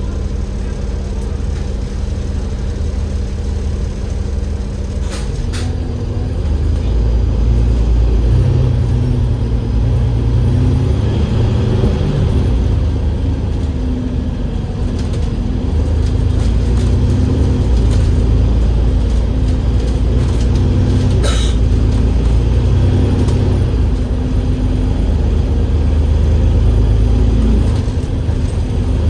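Double-decker bus's Cummins L9E diesel engine running steadily. About five seconds in it grows louder and rumbles under load, its pitch stepping up and down.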